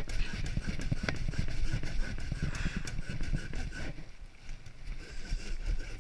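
A thin slice of log being sanded: uneven rubbing and scraping with low bumps, easing off briefly about four seconds in.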